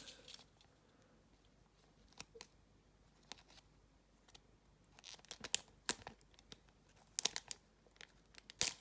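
Scissors cutting the end off a thin plastic card sleeve, with the sleeve's plastic crinkling as it is handled. A few scattered snips at first, then quick clusters of sharp snips and crinkles from about five seconds in.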